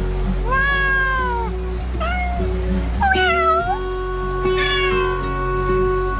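A cat meowing four times: a long drawn-out meow, a short one, then two more. Background music with a steady beat plays throughout.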